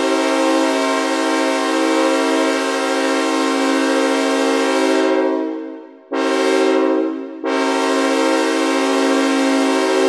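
Five-note sawtooth synthesizer chord from the AudioKit Synth One app, played as an imitation train horn. A long blast of about five seconds fades out, then comes a short blast of about a second, then another long blast that keeps sounding.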